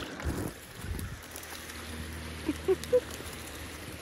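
Handling rumble and brushing of undergrowth against the camera, with a couple of dull thuds early on and three short pitched squeaks about a quarter-second apart near the end.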